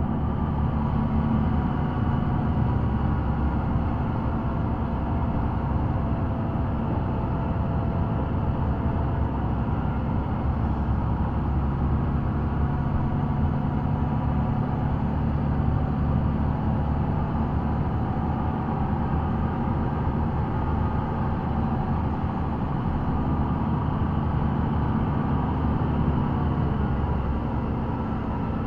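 Steady engine drone and tyre noise inside a moving vehicle's cab, with the engine pitch shifting slightly a few times.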